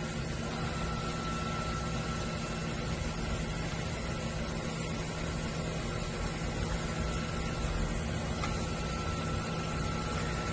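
Large five-axis CNC machining centre running: a steady machine hum with a thin, high, constant whine over it.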